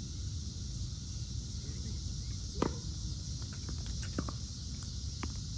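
A steady outdoor background hiss, with one sharp knock of a tennis ball, struck or bouncing, about two and a half seconds in, and a few faint ticks after it.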